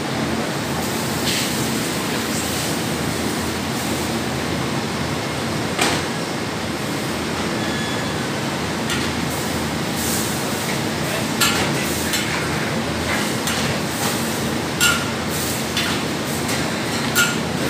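Steady rushing noise of a gas wok burner running under a steel wok, with a metal ladle clinking and scraping against the wok several times, mostly in the second half.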